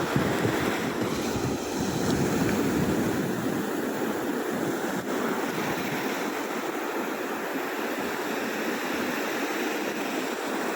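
Sea waves breaking and washing up on a beach, a continuous rush of surf.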